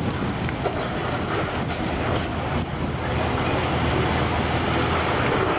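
Diesel engine of heavy earthmoving machinery running steadily, a little louder from about three seconds in, with a faint high whine over it.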